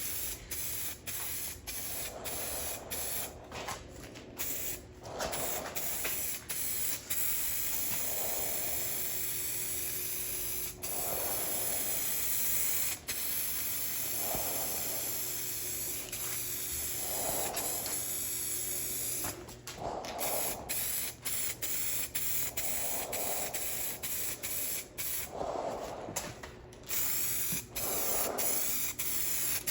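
Aerosol spray paint can hissing as it sprays in repeated passes, the hiss broken by many brief stops.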